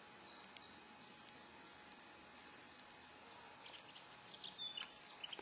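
Quiet outdoor ambience with faint, scattered short bird chirps, and three sharp clicks in the first second and a half.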